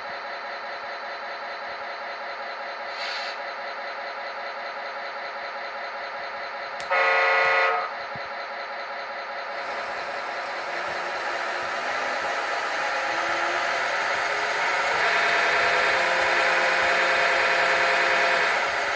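A vehicle engine running steadily, with a single loud horn blast lasting about a second some seven seconds in. The engine noise then grows louder through the second half.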